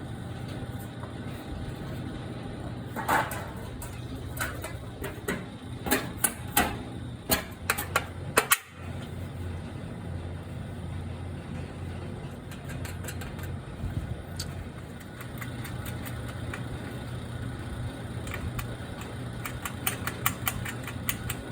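A steady engine-like hum runs throughout. Over it come sharp metal clicks and knocks as windmill sail ribs are fitted and bolted onto a galvanized steel sail, busiest in the first half and again near the end.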